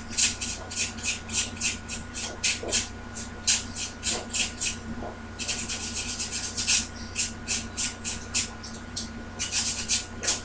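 Abrasive scrubbing on a metal contact, rubbing it down to bright fresh metal so it will take solder: short back-and-forth rasping strokes, two or three a second, with a brief pause about five seconds in and a quicker run of strokes after it.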